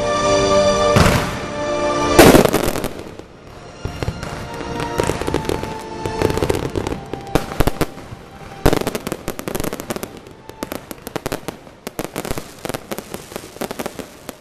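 Fireworks: a loud boom about two seconds in, then scattered bangs, and from about the middle a long run of rapid crackling as glittering shells burst, with music playing underneath.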